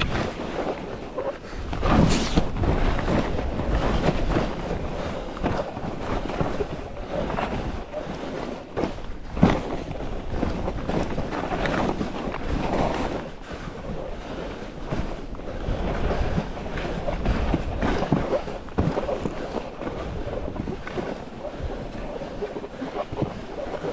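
Ski or snowboard edges hissing and scraping over snow through a run of turns, with wind rushing over the microphone. A sharp knock about nine and a half seconds in.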